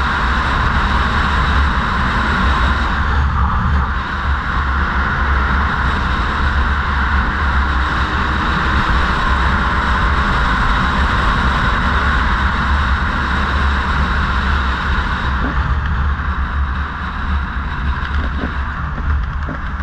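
Steady rush of wind on the microphone mixed with the running noise of a motorbike ridden along a road. The noise eases slightly about three and a half seconds in and again near the end.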